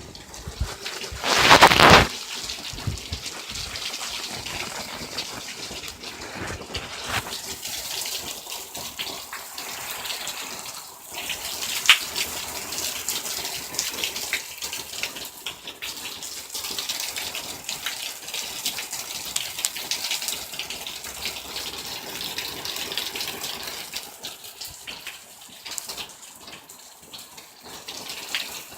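Heavy rain pouring steadily, a dense rushing hiss of water. It swells louder for about a second near the start, and there is a single sharp tap about twelve seconds in.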